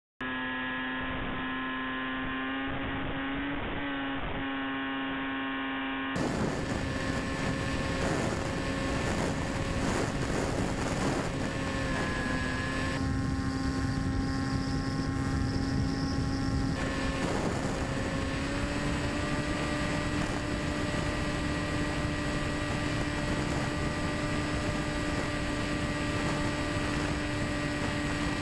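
Brushless 1000 kV electric motor and propeller of a Quanum Observer RC plane running steadily in flight: a constant hum with air rushing over the airframe. The motor's pitch rises slightly about two-thirds of the way through.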